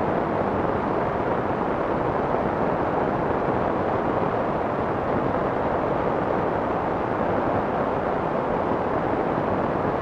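Soft white noise: a steady, even hiss with the high end rolled off, so it sounds muffled rather than sharp, and it does not change.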